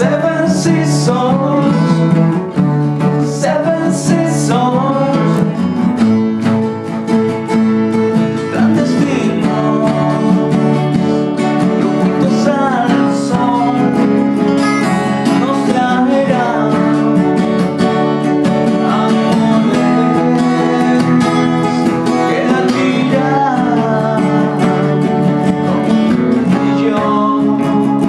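Indie rock song: strummed acoustic guitar with a man singing.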